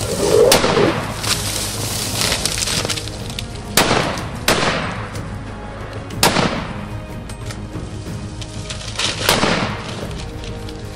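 Heavy rifle shots fired at a charging elephant at close range: several sharp cracks a second or more apart, the loudest about four, six and nine seconds in, each with a ringing tail. Background music plays under them.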